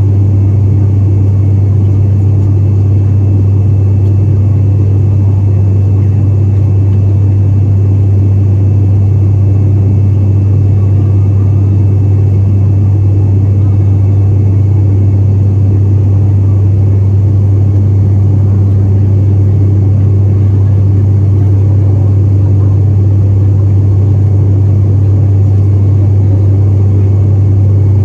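Airliner cabin noise in flight: a loud, steady drone with a strong low hum over a rumbling hiss, unchanging throughout.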